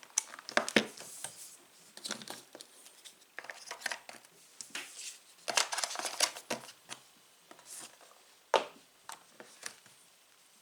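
Phone box packaging being handled: crinkling plastic and cardboard rustling, with scattered clicks and taps.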